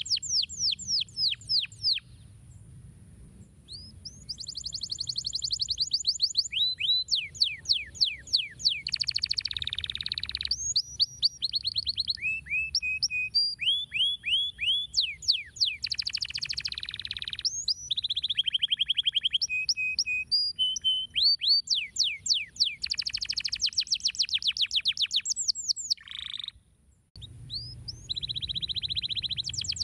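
Canary song: long runs of fast repeated, high-pitched trilled notes and rolling phrases, broken by a short pause about two seconds in and a brief break near the end. A faint low steady hum runs underneath.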